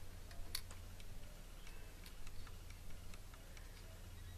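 Faint, irregular small clicks and ticks of loose steel needle bearings being set one by one around a greased dowel inside a T-90 transmission's main gear, over a steady low hum.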